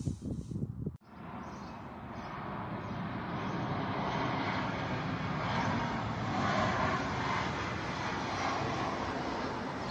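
Passenger jet airliner flying low overhead: steady jet engine noise that comes in about a second in, grows louder over the next few seconds and stays loud.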